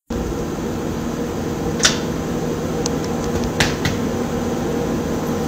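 A steady machine-like hum with a few constant tones in it, broken by two short clicks about two seconds apart.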